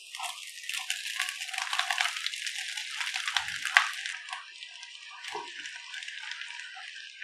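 Cooked rice being crumbled by hand into a hot frying pan: a dense crackle of falling grains over sizzling oil for about four seconds, with one sharp click near the end. A quieter crackle follows.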